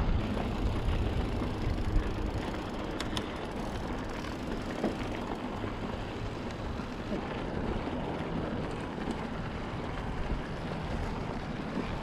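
Mountain bike rolling over a dirt fire road: steady tyre noise and rattle with wind rushing on the microphone, and a few light clicks about three seconds in.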